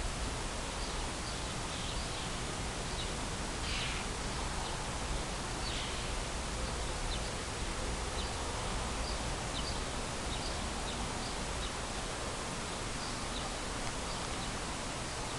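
Steady outdoor background hiss with scattered faint, short high chirps from small birds.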